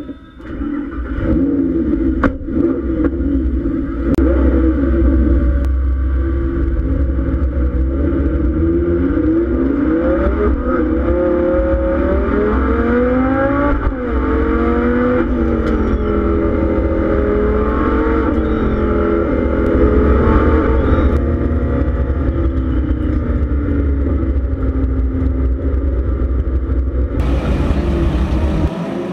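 Lamborghini Gallardo Super Trofeo race car's V10 engine heard from inside the cockpit, running at low revs, then revving up with rising pitch and a drop at a gear change around the middle before settling into a steady drone. Near the end the sound switches to the race cars heard from trackside.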